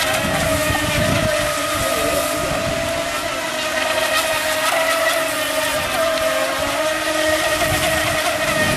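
Electric motor of a high-speed remote-control racing boat whining at a steady high pitch over a continuous hiss, the pitch wavering slightly as the boat runs flat out across the water.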